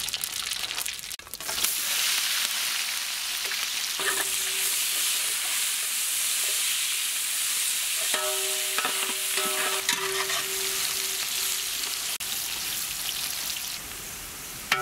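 Whole spices and sliced onions sizzling in hot ghee in a large pot; the sizzle grows suddenly loud about a second and a half in and then holds steady. A metal spatula stirs and scrapes against the pot, ringing briefly a few times past the middle.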